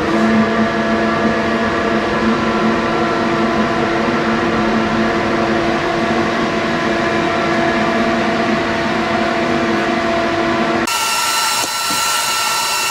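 Workshop extractor fan running with its rear filter removed: a steady hum made of several tones over a rushing noise, starting abruptly. About eleven seconds in, the sound changes suddenly to a brighter, hissier noise.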